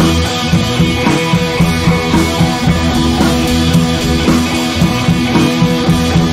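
Background music with a steady beat and held chords.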